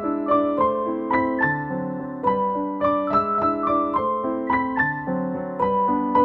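Background music: a gentle piano melody, single notes struck a few times a second and left to ring over soft held chords, with no drums.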